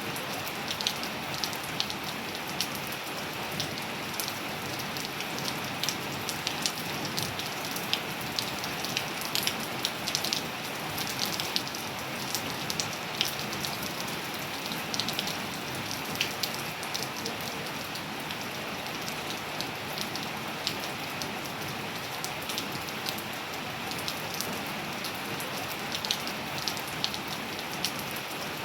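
Steady rain falling, an even hiss with many close, crisp drips and drop splashes scattered through it.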